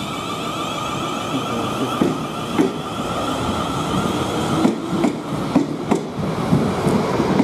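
A South Western Railway Class 450 Desiro electric multiple unit pulling away: a steady whine from its traction motors, with its wheels clacking over rail joints from about two seconds in. The clacks come more often in the second half as the whine fades.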